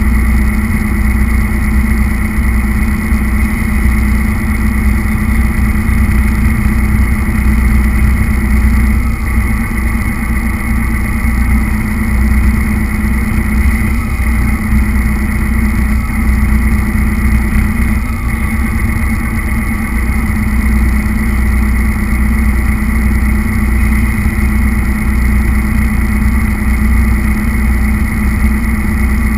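Radio-controlled truck's motor and drivetrain running steadily, picked up close by a camera mounted on the truck, with a constant whine over a low rumble.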